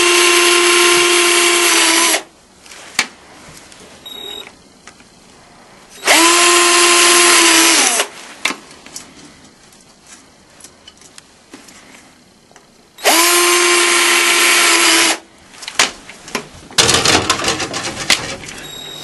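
Electric drill boring holes in a duct connector, run in three bursts of about two seconds each; the motor's whine holds a steady pitch and winds down each time the trigger is let go. Light clicks and knocks of handling come between the bursts.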